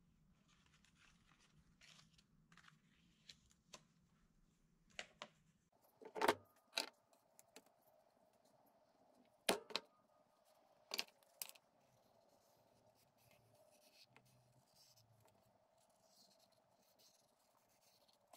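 Light handling noises on a workbench: a handful of sharp clicks and knocks, mostly through the middle, with soft rustling as a paper template is positioned on a sheet of metal.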